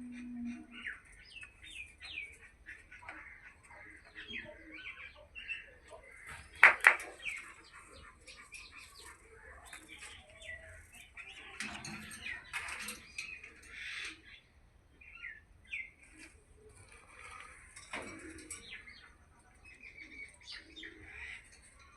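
Birds chirping in short, repeated calls. About seven seconds in comes one loud sudden clatter, and around twelve to fourteen seconds the chirping grows busier.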